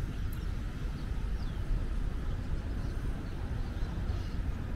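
Outdoor city ambience: a steady, uneven low rumble of wind on the microphone and distant traffic, with a few faint bird chirps.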